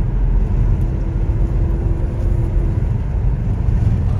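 Steady low road and engine rumble inside the cabin of a moving Chevrolet car.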